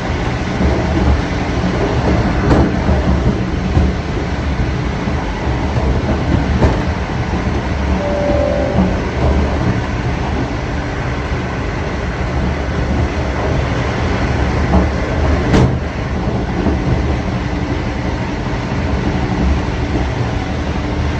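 Train running with a steady rumble and the clatter of wheels over the rails, broken by a few sharp clicks. A short tone of about half a second sounds about eight seconds in.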